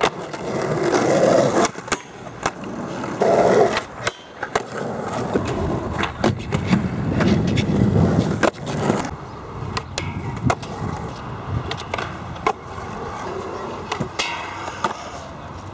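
Skateboards rolling on tarmac and concrete, a steady rumble of wheels broken by many sharp clacks as boards are popped and land.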